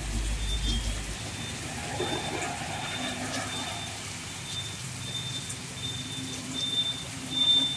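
Heavy rain falling on a wet road and trucks, a steady hiss. A high electronic beeping repeats about twice a second and grows louder toward the end, and a low rumble stops about a second in.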